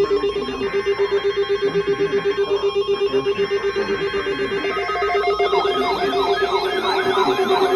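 Weather alert radio alarm tones. A steady electronic beep pulses rapidly, about eight times a second. About five seconds in, it is joined by a second tone and a warbling, siren-like sweep that rises and falls over and over.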